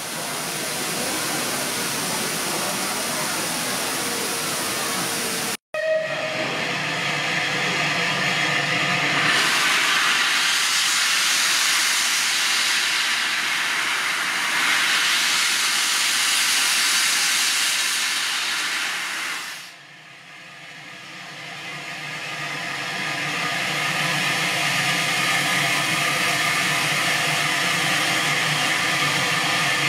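Bulleid light pacific steam locomotive 34092 standing at the platform and hissing steam. A louder spell of steam blowing runs for about ten seconds, then drops away sharply, and a steadier hiss builds back up.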